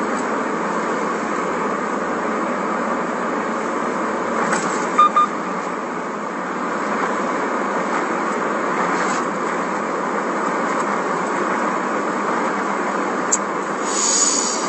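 Steady road and engine noise inside the cabin of a moving car, with a short double beep about five seconds in.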